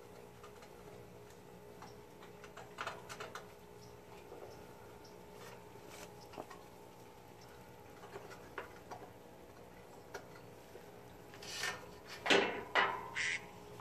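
Small clicks and rubbing as a headlight is handled and held against a riding mower's plastic hood. Near the end comes a string of loud, harsh repeated animal calls, each falling in pitch.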